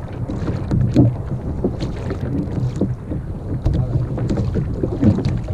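Wind buffeting the microphone as a steady low rumble, with water lapping against a kayak's hull and a few sharp splashy knocks.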